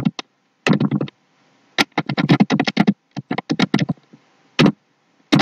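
Computer keyboard typing in irregular bursts of quick keystrokes, the longest a fast run of about a dozen keys lasting about a second near the middle, as a word is typed and corrected.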